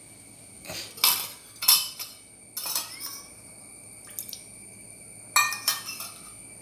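Sharp metallic clinks and knocks of a utensil against a steel pot of boiling milk kashaya. There are three in the first three seconds and two close together near the end, over the soft sound of the liquid boiling.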